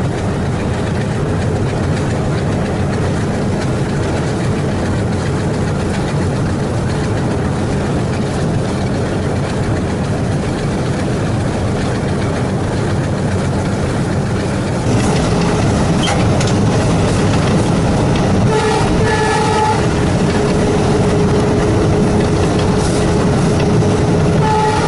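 Alco WDG-3A diesel locomotive's 16-cylinder ALCO 251 engine chugging under load, with steady running noise on the rails. It gets louder about fifteen seconds in, and short horn notes sound a little after that.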